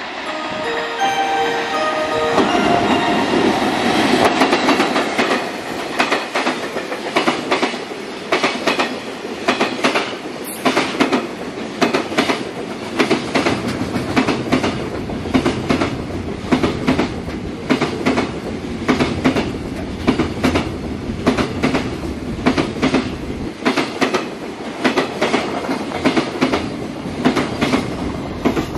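A container freight train hauled by an EF65 electric locomotive passing close by. A held tone sounds for about two seconds at the start, then the locomotive runs by, followed by a long, regular clickety-clack of wagon wheels over the rail joints.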